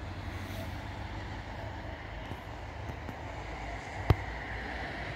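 Wind buffeting the microphone over a steady low rumble, with one sharp click about four seconds in.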